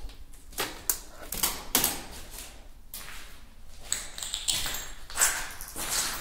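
Irregular taps, clicks and scuffs of someone moving about on a debris-strewn floor while handling a phone.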